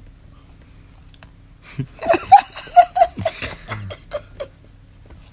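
A woman laughing in a run of short giggles, starting about two seconds in and trailing off about two seconds later.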